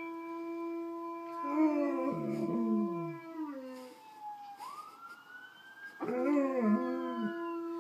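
Alaskan Malamutes howling: a long steady howl is joined about one and a half seconds in by wavering howls that slide down in pitch. About halfway through a howl rises in pitch, and near the end wavering howls and the steady howl start again.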